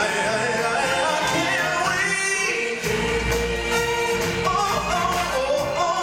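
Live stage-show music: lead singers on microphones with a chorus, over loud accompaniment. A deep bass comes in about three seconds in.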